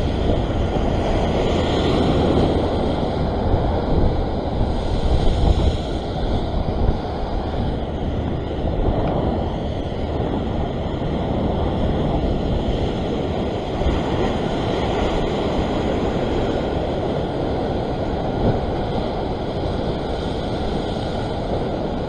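Ocean surf breaking and washing over a rock shelf, a continuous rush of white water that swells louder now and then, with wind buffeting the microphone.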